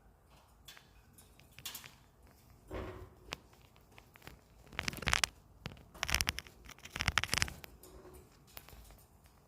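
Rustling and scratching close to the microphone, with a few louder scrapes about three, five, six and seven seconds in.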